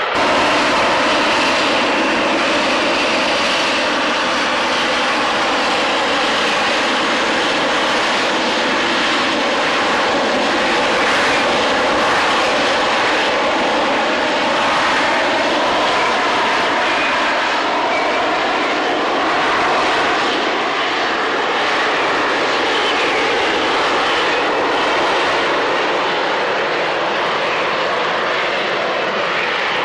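Harrier jet's engine running loud and steady through the whole stretch, a dense rushing noise with faint wavering whine tones in it.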